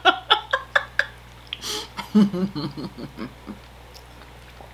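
A woman laughing: a quick run of short laughs in the first second, then a breathy exhale and softer chuckles that die away after about three and a half seconds.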